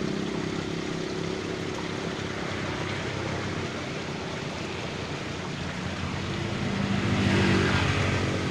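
Water running in a small stream, a steady rush, with an engine's hum that fades early on and swells again near the end.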